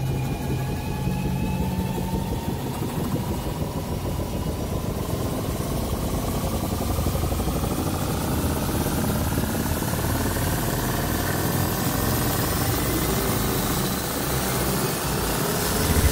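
Sound effect of a swirling magic portal opening: a steady low rumble under tones that slowly rise in pitch, with a hiss growing in near the end.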